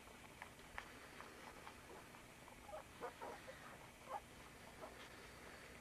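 Faint, short high squeaks from young puppies, several bunched together around the middle and one more about a second later, with a few soft clicks of movement.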